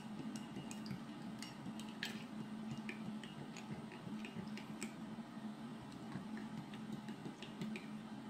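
Plastic spoon stirring soapy water in a ceramic mug: irregular light ticks and clinks of the spoon against the mug wall, over a low steady hum.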